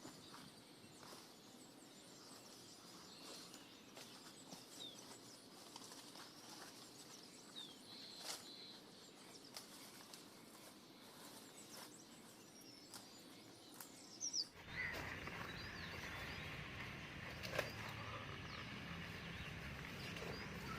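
Faint outdoor ambience with scattered short bird chirps and a few light clicks. About two-thirds of the way through, the background abruptly turns louder and noisier.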